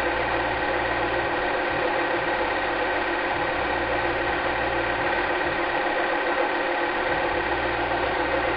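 Cine film projector running: a steady mechanical whirr with a fine, even rattle at a constant pitch.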